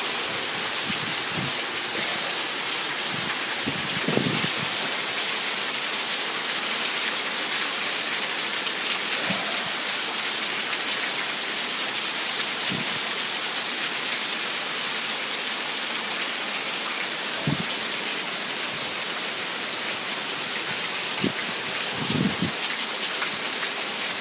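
Heavy downpour: a steady, dense hiss of rain pouring onto pavement, lawns and cars. A few short low bumps stand out above it, the strongest about four seconds in and near the end.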